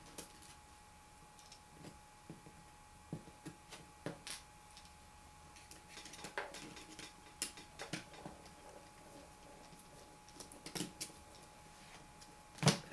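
Small, scattered metallic clicks and taps of a precision screwdriver working the screws out of a laptop screen's side brackets, with a louder knock near the end.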